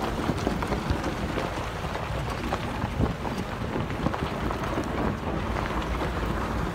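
A jeep driving on a rough, rocky dirt track: steady low rumble with irregular knocks and rattles, mixed with wind buffeting the microphone through the open window.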